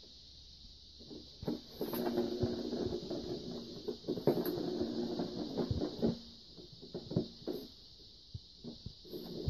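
A ball rolling around the plastic track of a circular cat scratcher toy as a cat bats it along with its paws: a rolling rumble for several seconds from about a second and a half in, then scattered taps and knocks as the ball is swatted and stops.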